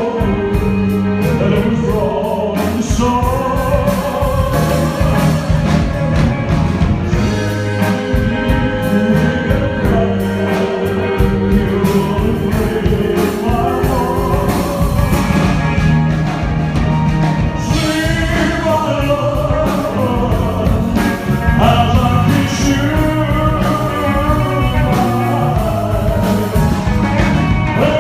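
Live band music with a singer holding long sung lines over steady drums and bass.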